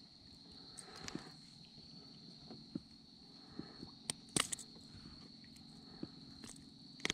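A steady, high insect trill carries on throughout, with scattered small clicks and taps from handling a bass and working a small crankbait free of its mouth; the sharpest clicks come a little past halfway.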